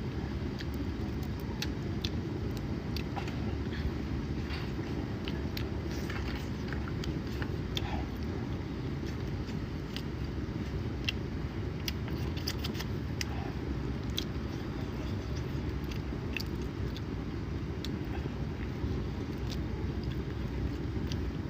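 Someone eating seafood: frequent short crunches and clicks of biting, chewing and shell-cracking, over a steady low rumble.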